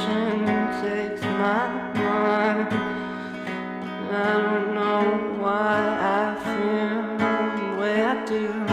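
Background music: a song with guitar and a singing voice over a steady beat.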